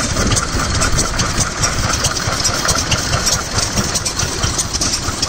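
Ruston & Hornsby PT single-cylinder stationary engine running steadily with a rapid, even beat.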